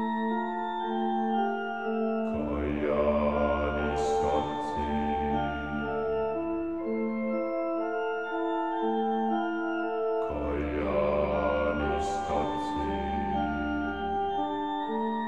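Background music: sustained keyboard chords changing in steps over a low bass line. There is a swell with two quick crashes about four seconds in, and again about twelve seconds in.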